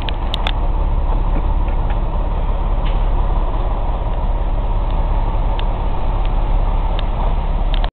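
Semi-truck's diesel engine running as the tractor rolls slowly, heard from inside the cab, with a steady low rumble and occasional creaks and clicks from the cab.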